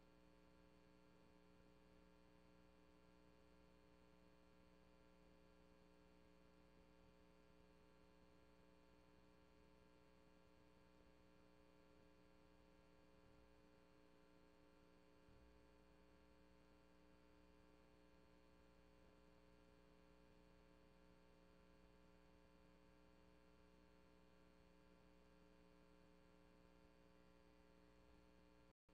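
Near silence: only a faint, steady electrical hum from a recording whose audio was not captured, cutting out for an instant near the end.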